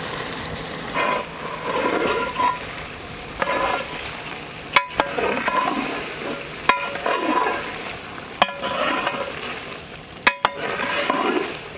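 A metal ladle stirring cauliflower and tomato curry in a large metal pot, scraping and ringing against the metal while the curry sizzles. A few sharp clicks come about two seconds apart in the second half.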